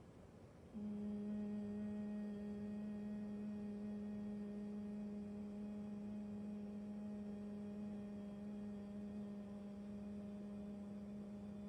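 A woman humming one steady low note through closed lips: the long out-breath of Bhramari (humming bee breath), meant to send vibration through the body. It starts about a second in and is held at an even pitch without a break.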